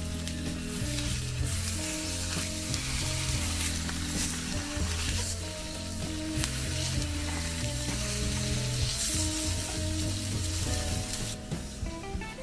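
Whole fish frying in oil on a stovetop griddle, sizzling steadily as they are turned with a fork; the sizzle drops away about a second before the end.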